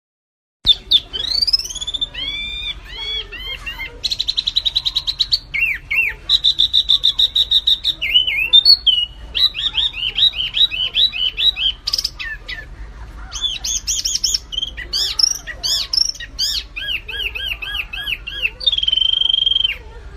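Small songbird singing a fast, varied song of high whistled notes, rapid repeated slurred notes and buzzy trills, starting about half a second in.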